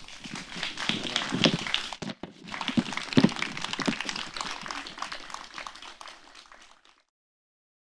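Audience applauding, with a brief break about two seconds in, then fading out near the end.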